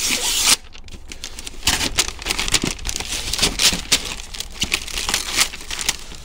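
Wrapping paper being torn off a parcel by hand and crumpled. A long loud rip comes at the start, then a run of irregular shorter rips and crinkles.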